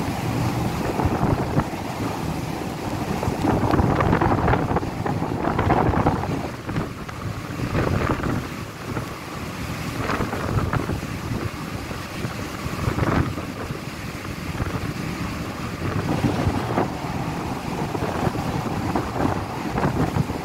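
Gale-force wind buffeting the microphone in irregular gusts on an open ferry deck, strongest a few seconds in, over the rush of a rough sea.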